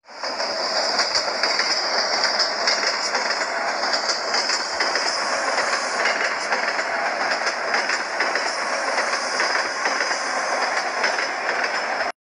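Recorded sound of a train rolling on rails: a steady clatter of wheels with a high, steady wheel squeal above it. It starts suddenly and cuts off abruptly near the end.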